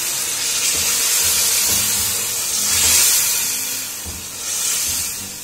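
Chicken in tomato masala sizzling and hissing as it is stirred with a wooden spoon, just after a cup of water has gone into the hot pot. The hiss swells about three seconds in and again near the end.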